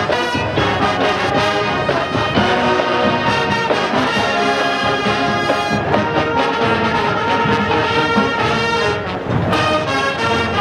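College marching band playing loudly, brass to the fore over a steady run of drum hits.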